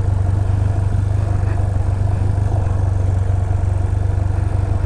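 Yamaha Fazer 250's single-cylinder engine running steadily at low revs while engine braking down a cobblestone track, a loud, even low drone.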